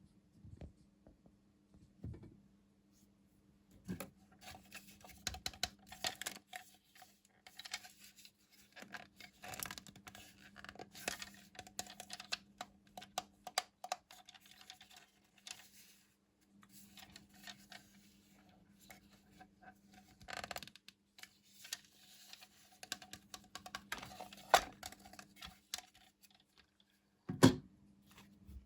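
Packaging being handled and torn open: irregular crinkling, tearing and scratchy clicks, with pauses between bursts and a sharp knock near the end, over a faint steady hum.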